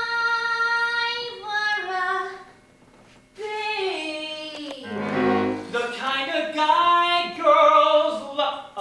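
Singing from a stage musical: a woman holds high sustained notes, breaks off for a short pause about three seconds in, then more sung phrases follow at a lower pitch.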